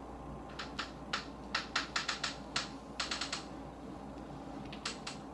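An irregular run of about fifteen sharp clicks, fast like typing, from about half a second in until about three and a half seconds in, then two or three more near the end.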